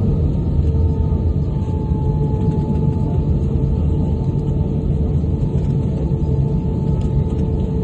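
Airbus A320 airliner's jet engines and airframe: a steady low rumble with a faint steady hum over it.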